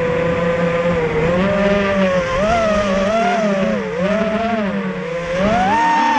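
GEPRC X250 FPV race quadcopter's four Racerstar 2205 2300kv brushless motors spinning DAL 5045 three-blade props, heard from the onboard camera: a buzzing whine whose pitch rises and falls with the throttle, climbing to its highest near the end.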